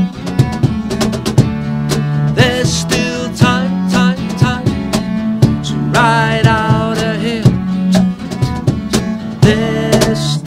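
Small acoustic band playing live: strummed acoustic guitars over a bass guitar, with a bowed cello holding long low notes. A melody line slides in pitch twice.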